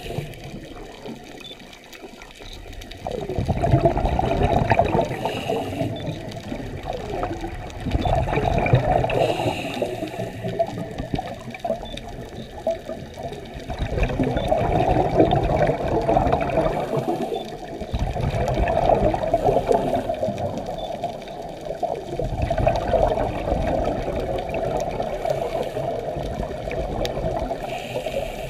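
Scuba regulator exhaust bubbles heard underwater: a diver's exhaled breaths bubbling for several seconds at a time. Short quieter gaps between the bubbling mark the inhalations.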